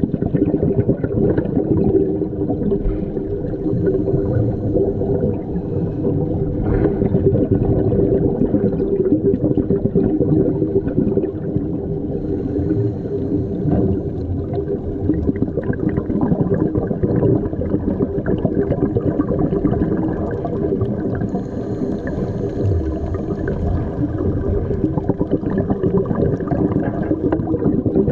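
Underwater ambience: a steady low hum with constant crackling and no change in level.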